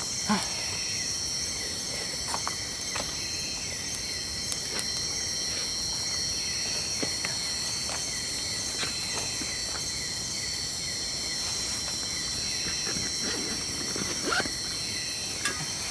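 Steady chorus of night insects such as crickets, a continuous high trilling, with scattered light clicks and taps of things being handled.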